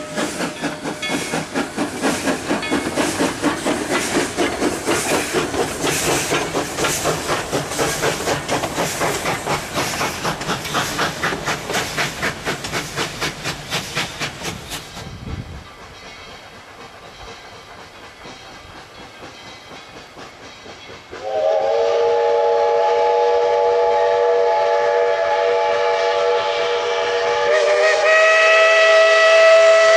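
USATC 2-8-2 steam locomotive No. 190 working hard with quick, even exhaust chuffs that fade away about halfway through. After a quieter stretch, a steam whistle sounds a long chord of several tones, growing louder near the end.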